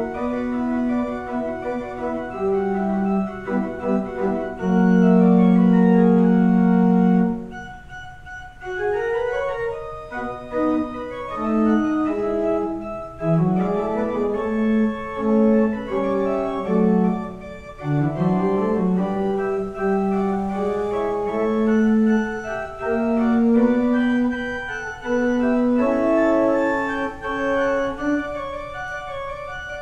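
Organ music played on a two-manual organ: held chords and moving lines of sustained notes. A loud chord is held for a couple of seconds about five seconds in, followed by a short quieter passage before the music moves on again.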